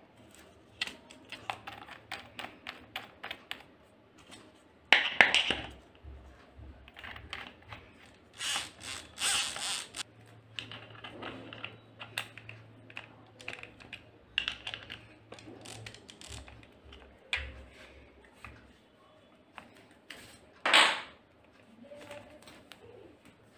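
Handling of an electric drill's keyed chuck and a plastic sanding-disc backing pad as the pad's shank is fitted and tightened by hand: runs of light clicks and rattles, with a few louder scrapes and knocks and one short loud burst near the end.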